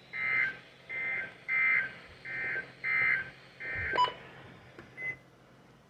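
NOAA Weather Radio SAME digital data bursts: six short buzzing bursts of tones, about 0.7 s apart, the end-of-message code closing the warning broadcast. A sharp click follows about four seconds in.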